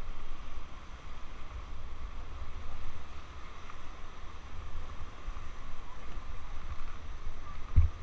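Whitewater river rushing past an inflatable raft, a steady hiss of moving water with a low rumble of wind buffeting the camera microphone. The low buffeting grows louder just before the end.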